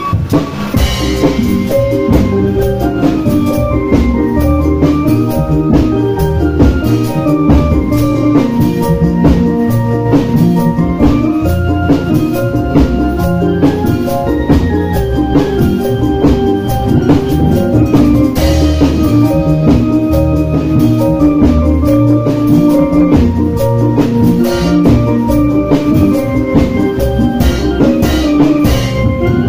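Obrog barongan percussion ensemble playing a fast, steady rhythm: plastic barrels beaten as drums, a hanging gong and clashing brass hand cymbals, with ringing metallic tones over the beat.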